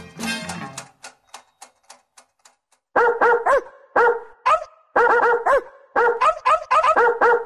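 The end of a song fades out in the first second, followed by faint ticks. From about three seconds in, a dog barks in quick runs of two to four high yaps, about one run a second.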